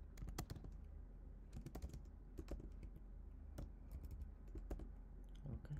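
Typing on a computer keyboard: faint, irregular keystrokes at a few per second, over a low steady hum.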